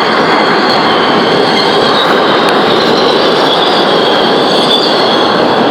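New York City subway train running, heard from inside the car: a loud, steady rumble with a high, wavering squeal of steel wheels on the rails.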